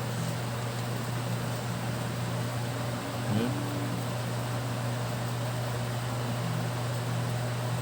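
Steady low hum over an even hiss, with a brief short pitched sound about three seconds in.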